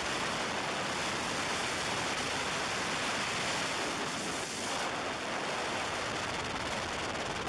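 Steady rushing wind and road noise from a moving car, recorded from a car window during driving.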